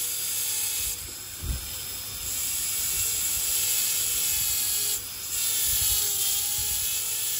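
High-speed dental handpiece running with a chamfer bur, grinding along the lingual finishing line of a plastic typodont lower first molar: a steady high hissing whine that dips briefly about a second in and again near five seconds in.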